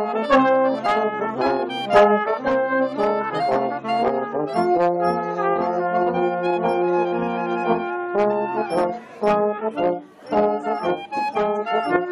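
Pep band playing: brass (trombones and trumpets) holding and moving through chords over a steady drum beat, with a short break about nine to ten seconds in before the band comes back in.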